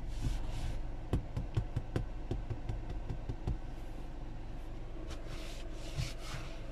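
A hand patting and rubbing the perforated leather seat of a 2010 Kia Forte SX: a run of quick soft taps, then the palm sweeping across the leather near the end. A steady low hum runs underneath.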